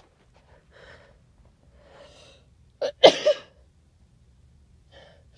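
A person sneezing once, loud and sharp, about three seconds in: a quick catch of breath, then the explosive burst. Two faint breaths come before it. The sneezing is set off by a pinch of chhinkni sneezing powder taken to clear a stuffy nose.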